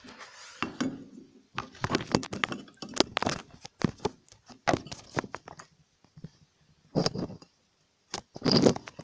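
Plastic and metal parts of a set-top box casing being handled and pulled apart: a run of sharp clicks, cracks and clinks in irregular clusters with short quiet gaps between them.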